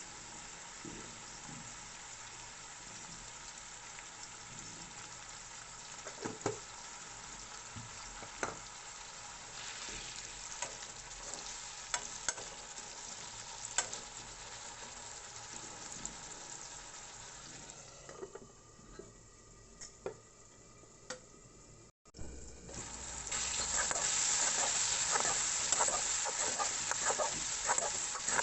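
Potatoes sizzling as they fry in a pan, stirred with a spatula that scrapes and knocks against the pan now and then. The sizzle dies down for a few seconds, breaks off briefly, then comes back louder near the end with quicker stirring.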